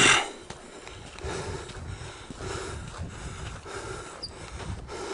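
Hiking footsteps crunching on a dirt trail at a steady walking pace, about one step every two-thirds of a second, with wind rumbling on the microphone. A brief loud bump right at the start.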